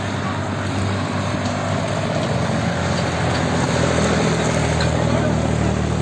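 A New Holland farm tractor's diesel engine running steadily at an even pitch, working along a burning stubble field to cut a firebreak.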